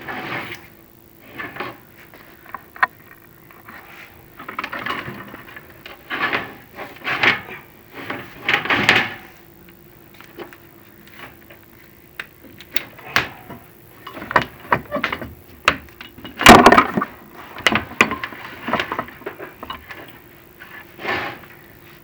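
Chimney inspection camera and its cable scraping and knocking against the brick flue walls as it is worked down the flue: irregular scrapes and clicks, with one sharp knock about two-thirds of the way in, over a faint steady hum.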